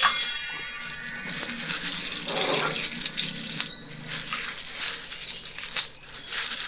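Small hard objects clicking and rattling against each other in quick, irregular clatters, with the tail of a bright chime dying away in the first second.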